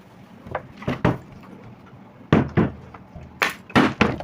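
Plastic bottle being flipped and landing on a hard surface: a string of hollow knocks, a few soft ones and then louder ones in the second half.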